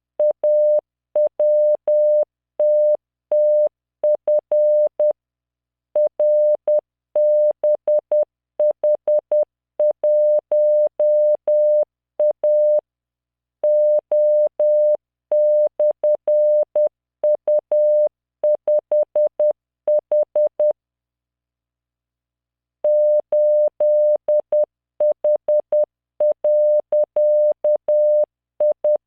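Computer-generated Morse code at 10 words per minute: a steady 600 Hz tone keyed on and off in dots and dashes, with a faint click at each start and stop. It sends random five-character groups of letters, figures and punctuation for copying practice, with a pause of about two seconds about two-thirds of the way in.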